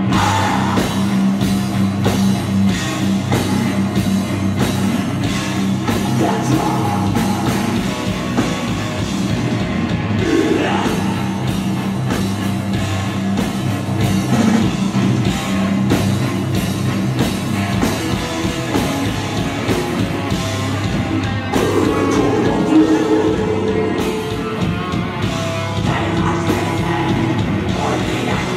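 Live heavy metal band playing at full volume: distorted guitars and bass, fast, dense drumming, and vocals through a PA.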